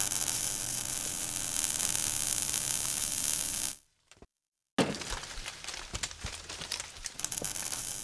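Sound effects for an animated logo: a steady fizzing crackle for nearly four seconds, a brief silence, then a sudden crash-like hit followed by scattered crackles.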